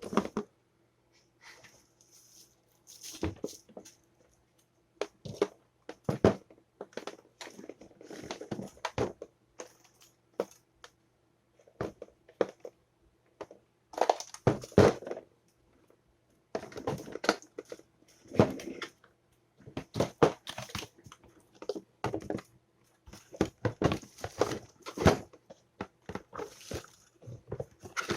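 Handling noise from a toaster being worked on: irregular clicks, knocks and short rattles of its metal and plastic parts, over a faint steady hum.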